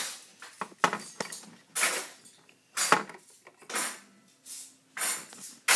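Small plastic toy figures and playset pieces being handled, knocking and clattering together in a string of short, separate clicks and clatters.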